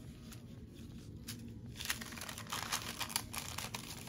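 Clear plastic packaging crinkling as it is handled, in irregular crackles.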